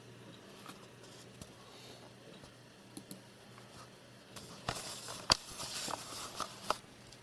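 Faint low hum with scattered small clicks, then a stretch of rustling and clicking about four to seven seconds in, with one sharp click a little past five seconds.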